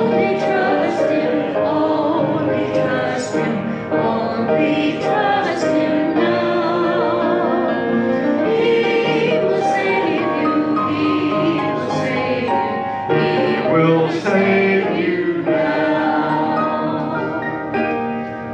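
Congregation singing a hymn with instrumental accompaniment, in long held notes.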